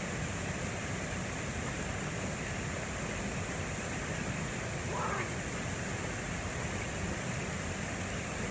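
Small rocky brook running over stones: a steady rush of water, with one short pitched sound about five seconds in.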